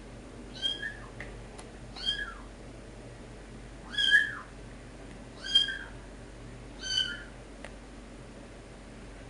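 A cat meowing five times in a row, short high-pitched calls that rise and fall, about one every second and a half.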